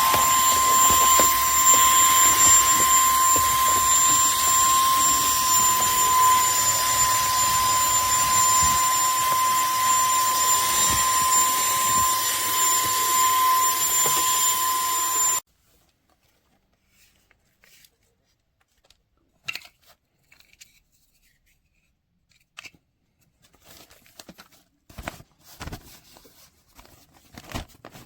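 Cordless handheld vacuum cleaner running steadily with a high motor whine, switched off suddenly about halfway through; faint clicks and handling noises follow.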